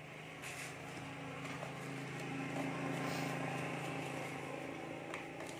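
Engine hum of a passing motor vehicle, steady in pitch, growing louder to a peak about halfway through and then fading away. A couple of light clicks sound near the end.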